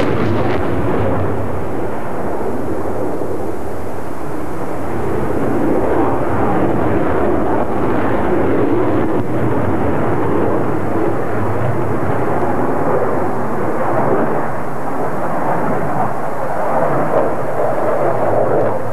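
British Aerospace EAP's twin Rolls-Royce RB199 turbofan engines making steady, loud jet noise as the fighter flies past. The high hiss thins about a second in, and the rest of the sound stays even throughout.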